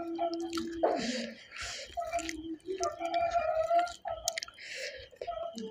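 Close-miked wet eating sounds: chewing and mouth smacking on a mouthful of chicken curry and rice, with scattered sharp clicks and two short hissing sounds, one about a second in and one near the end.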